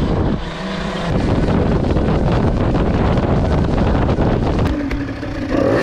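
Wind buffeting the camera microphone on a fast-moving electric dirt bike.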